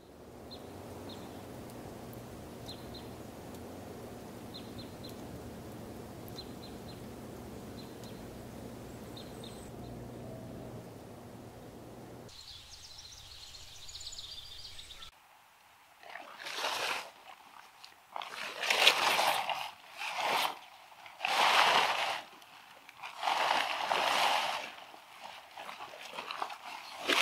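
Blue plastic tarpaulin being dragged off a car, rustling and crackling in a string of loud swishes through the second half. Before that there is a steady low hum with faint high chirps now and then.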